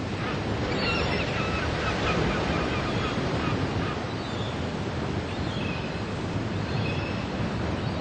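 Ocean surf washing steadily onto the beach, with wind on the microphone. A few faint bird calls come about a second in and again near the end.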